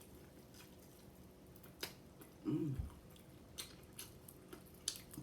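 A person chewing food, with scattered wet mouth clicks, and a brief low vocal sound about two and a half seconds in.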